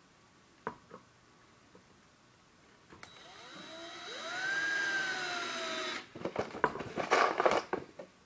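Cordless drill driving a wood screw into a pine board, run slowly without pre-drilling: the motor whirs up about three seconds in, its pitch rising and then sagging slightly, and cuts off after about three seconds. A couple of seconds of loud, irregular clicks and knocks follow.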